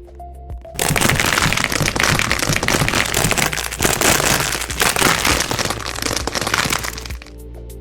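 Dense, continuous crackling made of many fine rapid clicks, starting about a second in and easing off shortly before the end.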